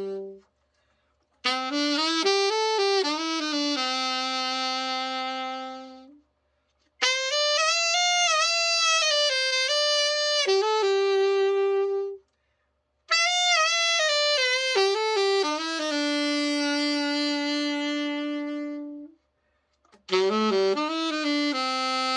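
Selmer Reference 54 alto saxophone played after a full overhaul: four short phrases, each a few quick notes settling into a long held note, with brief silences between them.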